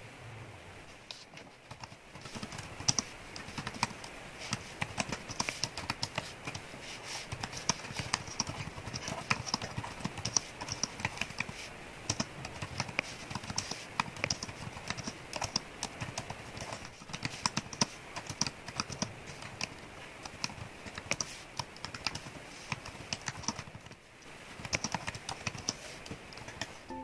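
Typing on a keyboard: a fast, irregular run of key clicks.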